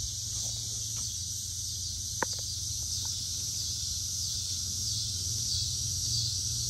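Steady high-pitched insect drone with a low background hum, and one sharp click about two seconds in.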